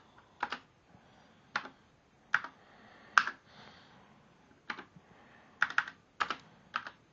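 Slow, one-handed typing on an Apple IIGS keyboard: about ten separate key presses at an uneven pace, with a pause of over a second in the middle and a quicker run of keys near the end.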